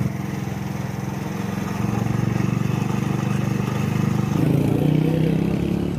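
Lamborghini Aventador SVJ's 6.5-litre V12 idling with a steady, deep note. It gets a little louder about four seconds in.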